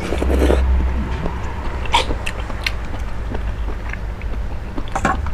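Close-miked eating sounds: scattered wet mouth clicks and chewing, over a steady low hum.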